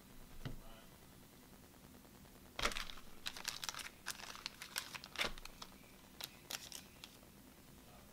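Thin plastic of a card-sleeve packet crinkling and rustling in short irregular bursts as sleeves are handled and pulled out, beginning with a sharp rustle about two and a half seconds in and stopping about a second before the end.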